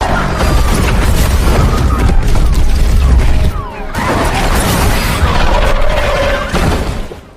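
Movie destruction sound effect: a heavy, loud rumble with dense crashing and cracking debris. It surges in two waves, with a brief dip just before four seconds, then fades out.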